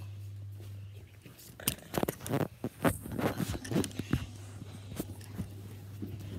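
Rustling and crackling handling noise, a quick run of sharp crackles and clicks lasting about two and a half seconds, over a steady low electrical hum.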